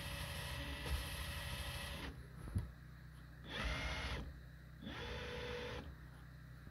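Cordless drill whirring steadily as it spins an engine valve against its seat to lap it with grinding compound, stopping about two seconds in. A sharp click follows, then two short bursts of sound about a second apart.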